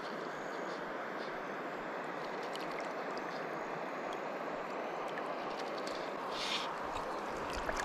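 Steady rush of river water flowing around the angler, with faint scattered ticks and a brief hiss about six and a half seconds in.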